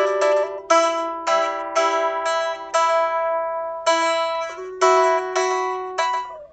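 Solo guitar improvisation: slow picked notes and chords, about nine in all, each struck sharply and left to ring and fade before the next.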